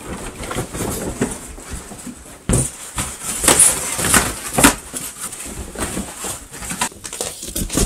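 Cardboard boxes and polystyrene foam packing being thrashed about and tossed. It is a run of irregular rustling, scraping and knocks, with a cluster of louder crashes from about two and a half to five seconds in.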